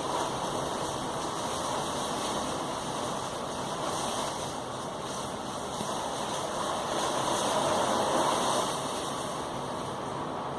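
Heavy thunderstorm rain pouring down in a steady rush, swelling louder for a second or so about seven to eight seconds in.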